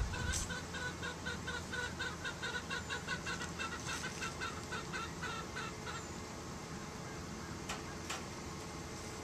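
Chicken clucking: a quick, even run of short clucks, about five a second, that stops about six seconds in. Two brief clicks follow near the end.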